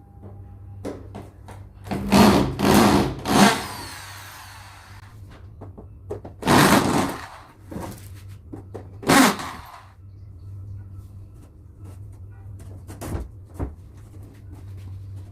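Electric hand drill run in short bursts: three quick bursts about two seconds in, then single bursts at about six and a half and nine seconds. A steady low hum runs underneath.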